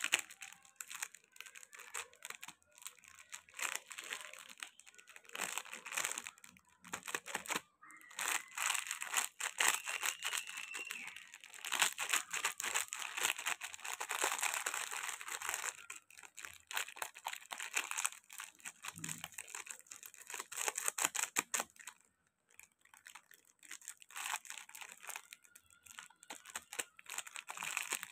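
Glossy plastic candy wrappers of Treat Choco Lolli packets crinkling as they are squeezed and rubbed together in the hands, an irregular crackling that comes and goes.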